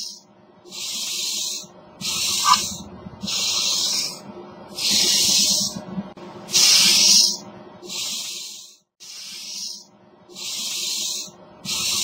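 Cockroach hissing in short bursts, about nine of them, repeating steadily a little over once a second.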